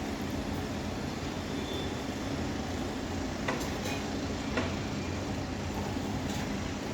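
Steady low mechanical rumble and hum, with a few sharp knocks a little past the middle.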